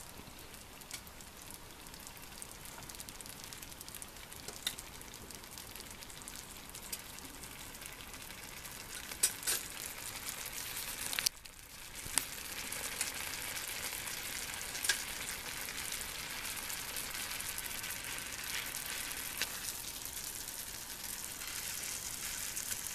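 Beef steak and whole garlic cloves frying in olive oil in a stainless steel pan: a steady sizzle with fine crackling and a few sharp clicks. The sizzle drops out for a moment about halfway through, then comes back a little louder.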